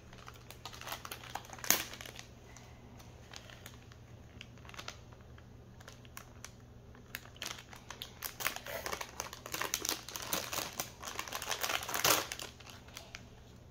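Mystery-pack wrapper crinkling and rustling as it is torn open and handled: scattered crackles with a sharp one about two seconds in, then a denser run of crinkling near the end.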